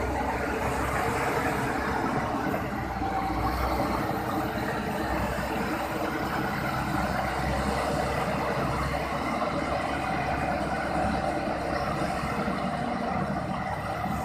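Diesel engine of a SANY SAG160-5 motor grader running steadily as the machine works.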